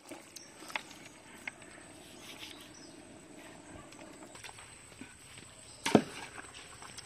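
Metal ladle scraping and clinking against a large aluminium cooking pot as chicken and onions are stirred, with a few light clinks and one loud knock just before six seconds in.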